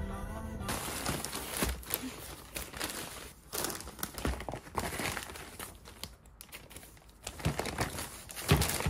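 Paper bakery bags rustling and crinkling as loaves of sourdough bread are handled and unwrapped, with small clicks and knocks. A louder thump comes near the end.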